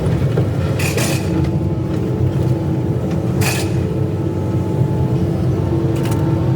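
Excavator's diesel engine running steadily with a held hydraulic whine. Three short high-pitched bursts come through, about a second, three and a half seconds and six seconds in.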